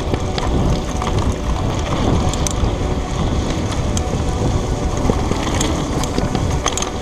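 Wind buffeting the microphone of a rider-mounted action camera as a mountain bike rolls along a dirt road. Tyres crunch on the loose surface, with scattered clicks and rattles from the bike over bumps.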